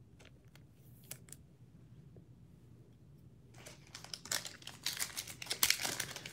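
Foil trading-card pack crinkling as it is picked up and handled, starting a little past halfway and getting louder; before that, only a few faint clicks.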